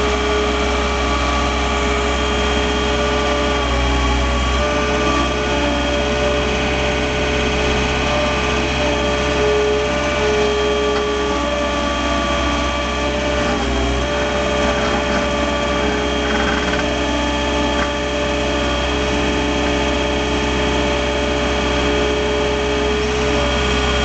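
2006 John Deere 320 skid steer loader's engine running steadily under the operator's seat, a low rumble with a steady whine on top, as the machine works a snow pusher blade.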